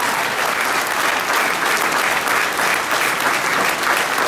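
A large crowd applauding, dense and steady clapping.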